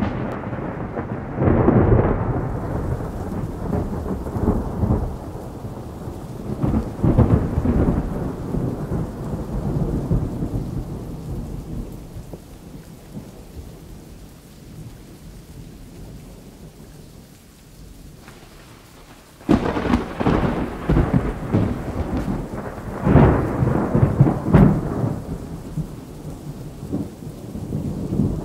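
Thunder rolling in repeated low rumbles that swell and fade, dying down to a quieter stretch midway. A sudden loud thunderclap breaks in about two-thirds of the way through, followed by more heavy rolls.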